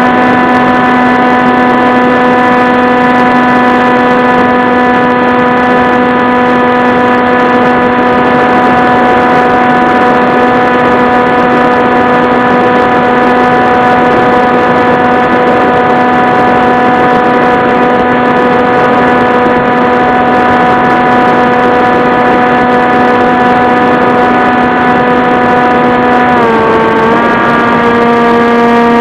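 Motor and propeller of an FPV model aircraft, heard from onboard, running at a steady pitch with a rush of air noise; the pitch dips briefly near the end, as with a throttle change.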